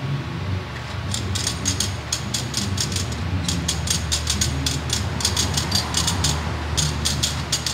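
Rapid runs of light metallic clicks and rattles as a hand rakes flat metal radiator tubes across a core assembly desk, the tubes knocking against each other and dropping into the comb slots; three bursts of clicking separated by short pauses, over a steady low machine hum.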